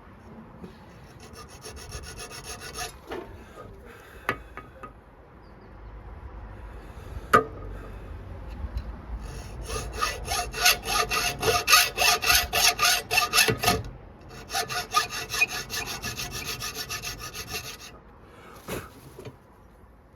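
A hand file or saw worked quickly back and forth on a small piece of metal, about five strokes a second, in runs of several seconds with pauses between. There are a few single knocks in the pauses.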